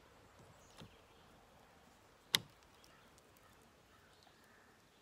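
A single sharp click of fishing tackle being handled while a catfish rig is tied, with a fainter tap about a second before it.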